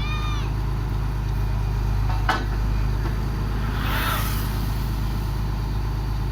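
Engine of a GD45 horizontal directional drilling (HDD) rig running steadily under work, with one sharp metallic click a little after two seconds and a brief hiss about four seconds in.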